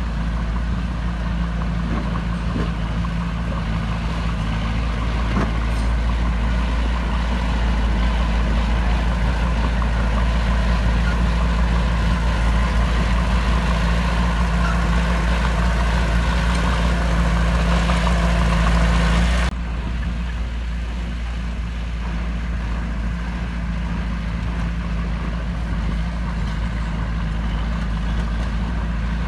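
Heavy earthmoving machine's diesel engine running steadily under load, with a deep, even engine note; the sound changes abruptly about two-thirds of the way through, dropping a little in level.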